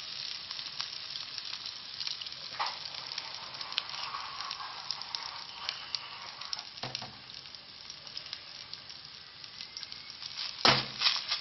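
Kofta fingers of seasoned minced meat sizzling and crackling as they shallow-fry in a little oil to brown. A few soft knocks come through the sizzle, and a loud knock near the end.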